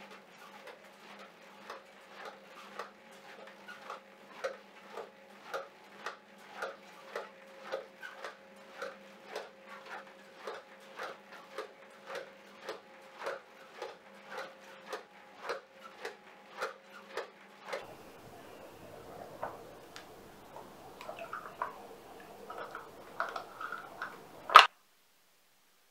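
A small machine humming steadily with a sharp click about twice a second; both stop together partway through. Irregular light clattering follows, ending in one sharp, loud click.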